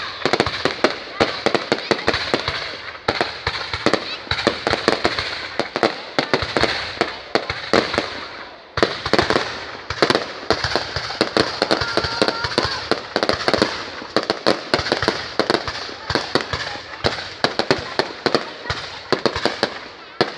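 Fireworks going off in a dense, rapid string of sharp cracks and pops, with a brief break about nine seconds in.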